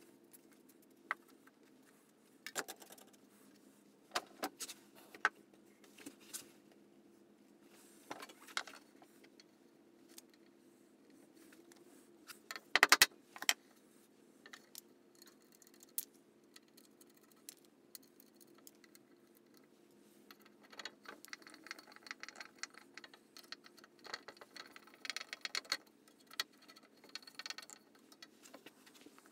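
Small metal clinks and wooden knocks as brass saw screws and a wooden handle are fitted onto a handsaw blade, with one loud knock about 13 seconds in. Near the end comes a longer run of quick scraping clicks as the screws are tightened with a screwdriver, over a faint steady hum.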